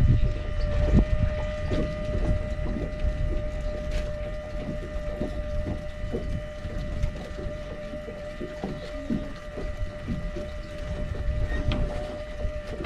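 A steady mechanical whine from a small motor, running evenly over an uneven low rumble with scattered light knocks.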